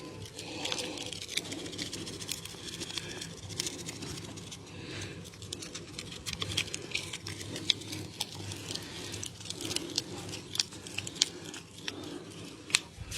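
Close-up hand massage: a continuous soft rubbing and patter of hands on skin, broken by many irregular sharp clicks and cracks. A few cracks stand out, the loudest near the end.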